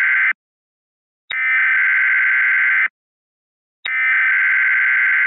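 Emergency Alert System SAME header: buzzy digital data bursts about a second and a half long, each opening with a click and followed by about a second of silence. One burst ends just after the start and two more follow. This is the coded header that opens a weather radio emergency alert.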